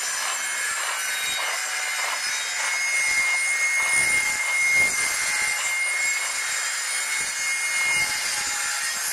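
Skew chisel shaving a maple spindle turning on a foot-powered pole lathe: a rasping wood cut in repeated strokes.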